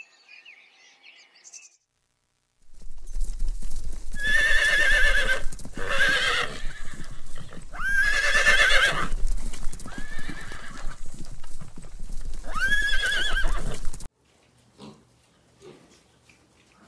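Horse whinnying about five times in a row, each call a loud, quavering neigh, over a steady low rumble; the calls stop abruptly about three seconds before the end. A faint goat bleat comes just before them, and a few faint pig grunts come after.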